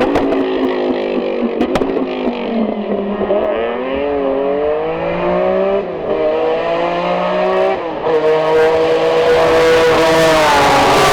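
Racing car engine at full throttle on a hillclimb, its pitch rising and falling through corners. The pitch drops sharply about six and eight seconds in, like gear changes, and the engine gets louder toward the end.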